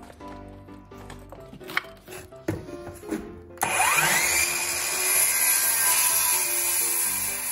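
Ridgid cordless circular saw starting about three and a half seconds in with a quickly rising whine, then running loud and steady as its blade crosscuts a 2x4 block. A few knocks of the board being handled come before it.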